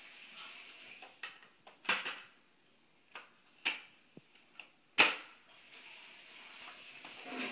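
Chunky plastic toy building blocks clicking and knocking together as they are handled, a string of sharp, uneven clacks with the loudest one about five seconds in.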